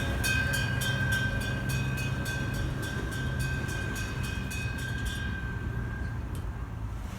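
Class 170 Turbostar diesel multiple unit running past, its wheels clicking rapidly and evenly over the rail joints with a steady whine and a low engine hum. The clicking and whine stop about five seconds in.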